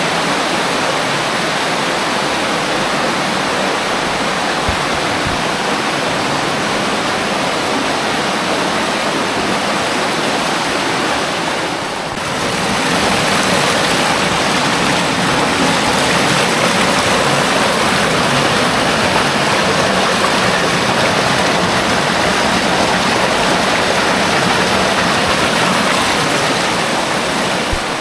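Rain-swollen water rushing and cascading over rock inside a cave, a loud steady rush. It dips briefly about twelve seconds in and comes back a little louder.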